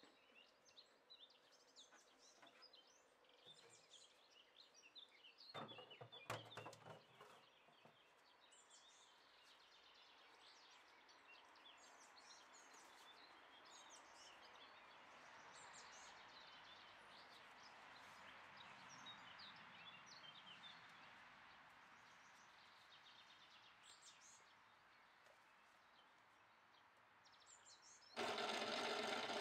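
Faint birdsong chirping over near silence, with a brief noise about six seconds in. About a second before the end, an old Mio Standard electric corn sheller switches on and runs steadily, the loudest sound here.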